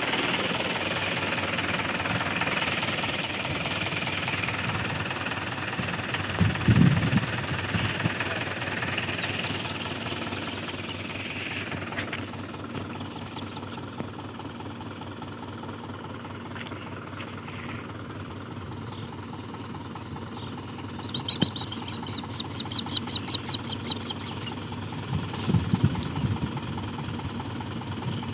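Mahindra tractor's diesel engine running to drive the hydraulics that tip a loaded trolley, louder for the first ten seconds or so and then easing off. A couple of low thumps come about a quarter of the way in and again near the end.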